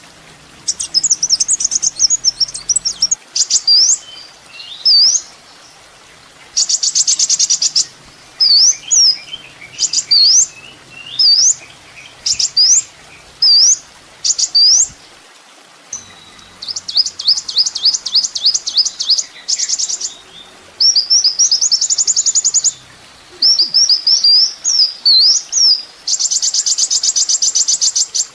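Kolibri ninja (a sunbird) singing a loud, high-pitched, varied song: quick sharp slurred chirps broken several times by fast trilled rattles of a second or two.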